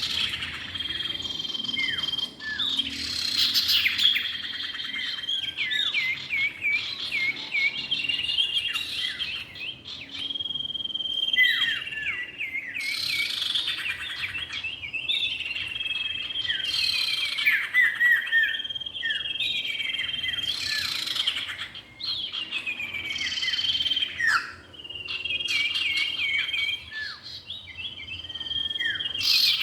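Common iora (cipow) male and female calling: long, steady whistles alternating with runs of short notes that drop sharply in pitch, repeated over and over as a bird-lure recording.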